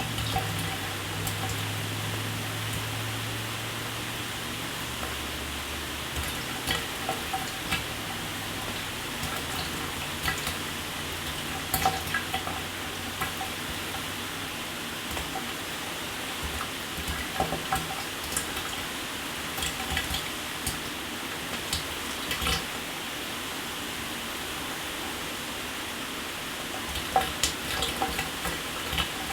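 Shower water running: a steady hiss of spray with scattered splashes and drips. A low hum fades out during the first several seconds.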